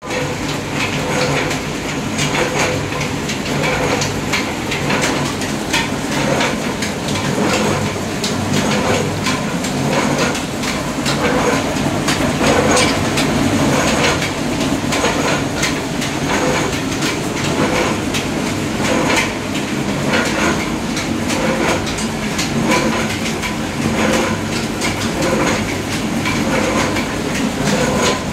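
Screw-type oil expeller running while pressing mustard seed: a steady mechanical hum with a continual rapid clatter of metal knocks and clicks.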